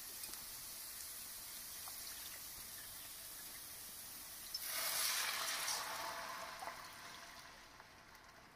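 Chopped onion, carrot and bell pepper sizzling faintly in a hot stainless steel pan. About four and a half seconds in, water poured in from a glass jug hits the hot pan with a loud hissing sizzle that dies down over the next few seconds.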